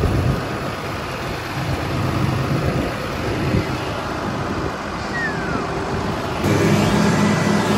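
Tractor engine running steadily while pulling a land-levelling scraper through loose, dry soil. About six and a half seconds in, the engine hum gets louder and fuller. A brief falling squeak comes near the middle.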